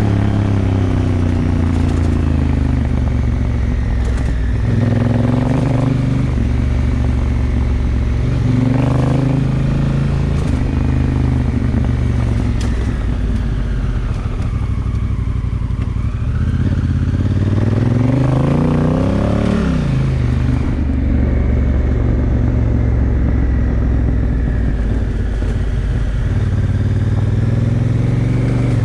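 Honda Africa Twin Adventure Sports' parallel-twin engine running under way on a gravel track. Its revs rise and fall with the throttle, dip around the middle, then climb steeply and drop back. Gravel crackles under the tyres.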